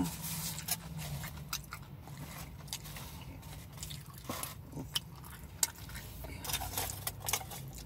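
A person chewing a mouthful of fast food, with scattered wet smacks and small clicks from the mouth.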